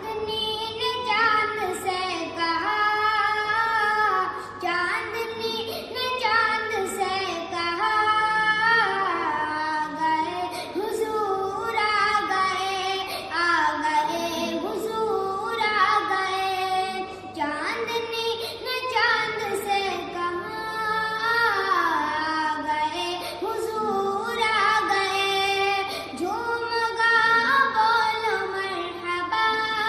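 A high voice singing a naat, an Islamic devotional song in praise of the Prophet, in long phrases whose melody bends and glides between notes.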